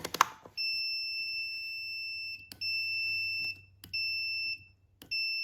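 Digital multimeter's continuity buzzer giving a steady high beep through a rebuilt brake light switch. It cuts out three times with a sharp click as the plunger is pressed, leaving four stretches of tone. The beep stopping at each press shows the switch is working, opening the circuit when pushed in.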